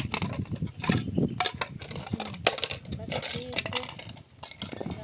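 A quick run of clinks, knocks and clatters, several a second, with a brief lull about four seconds in.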